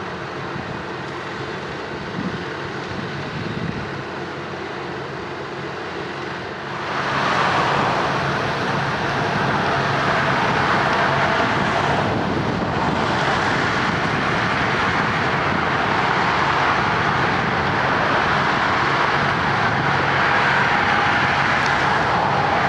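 Heavy diesel road-paving machinery running steadily. It gets clearly louder about seven seconds in, as a machine works closer.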